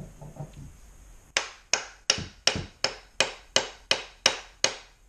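A mallet striking the butt end of a wooden hatchet handle ten times in a steady run, about three blows a second, driving the hanging Plumb hatchet head up onto the handle to seat it.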